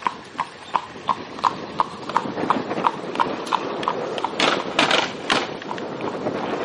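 Horse's hooves clip-clopping on the asphalt road at a steady pace, about three beats a second, as it pulls an Amish buggy. There is a rolling rumble from the buggy's steel-rimmed wheels, and a louder clatter a little past the middle as the buggy crosses the railroad tracks.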